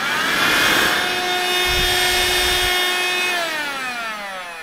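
Ambiano wet and dry cordless handheld vacuum cleaner running: its motor whine rises in pitch through the first second as it spins up, holds steady, then is switched off a little over three seconds in and winds down with falling pitch.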